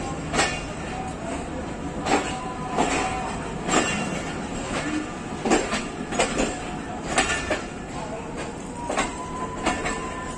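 Tezgam express passenger coach rolling slowly over the track, heard from its open doorway: a steady rumble broken by irregular clacks of the wheels over rail joints. A faint thin squeal joins near the end.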